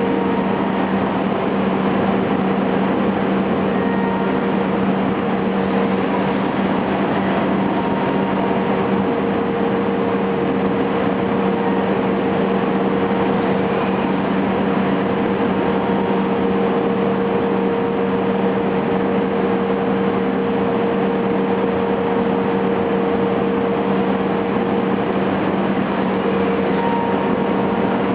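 HOMAG BOF 211 CNC machining centre running, its spindle cutting wood as the five-axis head mills a stair part: steady, loud machine noise with a constant low hum and a higher steady tone.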